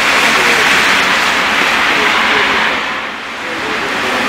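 Heavy rain pouring down, a loud steady hiss that eases briefly about three seconds in and then picks up again.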